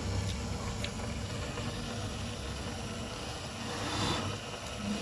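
Steady hiss with a low hum, louder for a moment about four seconds in, and light handling of a spoon in a pot of rice.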